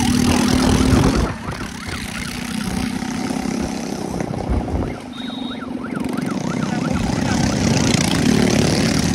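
Motorcycle engines running steadily as a group of bikes rides along a road, heard from a moving motorcycle. About five and a half seconds in, a warbling siren-like tone comes in briefly.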